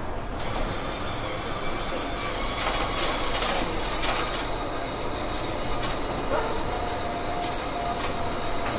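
Cabin noise inside a King County Metro bus in the downtown transit tunnel: a steady low rumble broken by several short bursts of rattling clatter, with a brief steady tone near the end.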